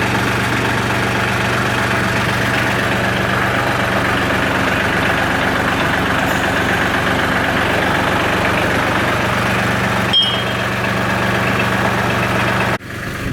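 New Holland TC33DA tractor's diesel engine running steadily, with a short click about ten seconds in.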